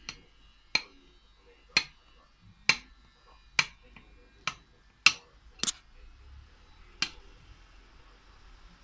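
Steel knife blade knocking against a ceramic plate while a sponge cake is sliced, sharp clinks about once a second, stopping about seven seconds in.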